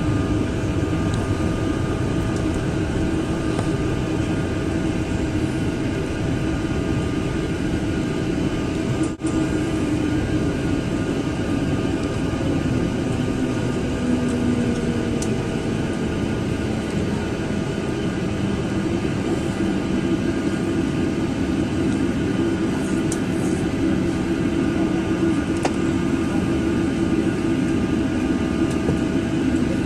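Boeing 777's jet engines running at taxi power, heard from inside the passenger cabin: a steady engine noise with a few steady humming tones over it. The sound cuts out for an instant about nine seconds in.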